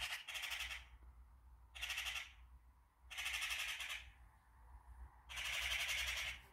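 Eurasian magpies giving their harsh, rattling chatter in repeated bursts of half a second to a second, five times, the longest about three seconds in. This is the chatter magpies give at a cat stalking them.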